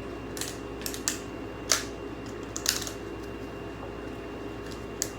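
A handful of short, sharp plastic clicks and knocks over a steady hum, the loudest about a second and a half in: a hair dryer's small plastic fan and loose parts being handled.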